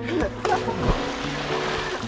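Background music with sustained notes, over which a person splashes into a swimming pool about half a second in, followed by the hiss of churning water.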